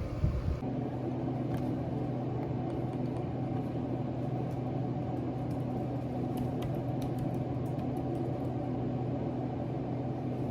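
Steady mechanical hum of a small motor or appliance, with a few faint ticks.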